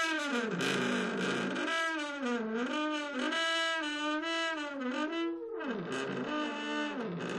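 Creaky wooden door swinging on its hinges: a long, squeaky creak whose pitch dips and rises again several times, with a short break about three-quarters of the way through.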